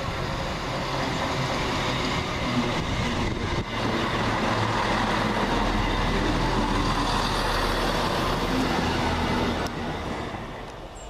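Class 170 Turbostar diesel multiple unit running through the station, its underfloor diesel engines and wheels on the rails making a steady noise that dies away about ten seconds in.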